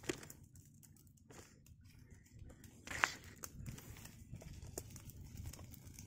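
Dry leaves and twigs rustling and crackling as brush is handled, with scattered small snaps and one sharp snap about three seconds in.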